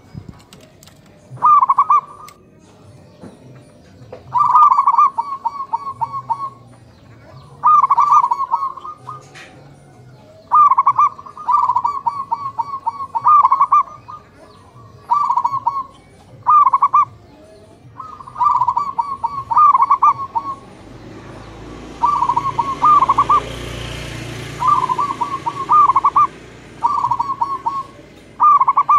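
Zebra doves (perkutut) cooing: about a dozen short phrases of quick, staccato coos, one after another with short pauses between. Small birds chirp faintly in the background, and a rushing noise swells behind the coos about two-thirds of the way through.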